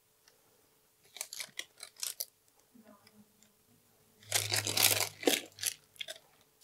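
Thin plastic piping bag crinkling and rustling as meringue is spooned into it with a spatula, in short scattered bursts; the loudest rustling comes about four seconds in.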